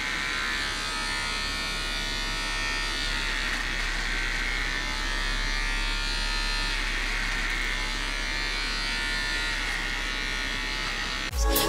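Handheld electric hair trimmer buzzing steadily as it cuts hair close to the ear. The buzz stops near the end and music comes in.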